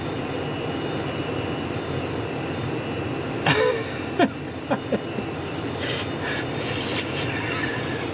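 Combine harvester running steadily at work, a constant low mechanical drone, with a few brief voice sounds about halfway through.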